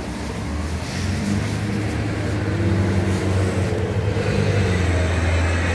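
Motor engine running with a steady low hum, growing louder about a second in and then holding steady.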